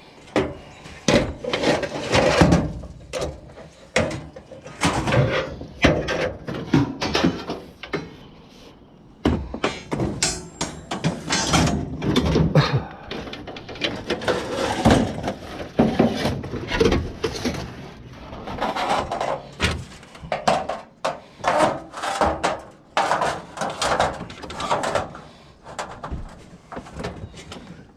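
Irregular knocks, thuds and clatter of junk being handled and dropped while a scrap pile is picked through, going on throughout with short pauses.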